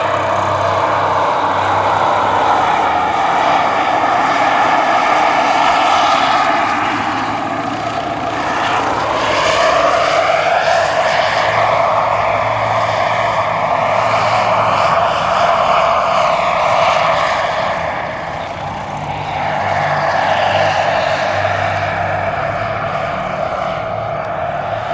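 Model gas turbine (Jakadofsky Pro 6000) whining in a 1:6 scale Bell AH-1W Super Cobra RC helicopter in flight, with the low beat of its main rotor underneath. The whine's pitch slides down and back up as the helicopter makes a close, low pass about halfway through, and dips briefly in loudness near the end as it turns away.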